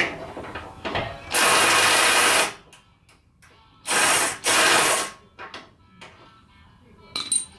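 Socket ratchet clicking in three quick runs of about a second each as it turns a bolt, with a few short clicks near the end.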